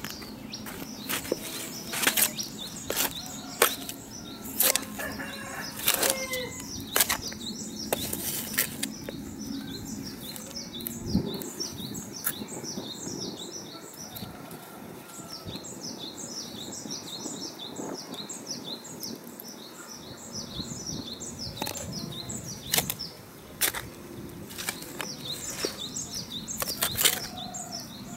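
Scattered knocks and scrapes of a trowel and hands working soil mix in a metal basin. From about a third of the way in until about three-quarters through, small birds chirp rapidly and repeatedly in the background.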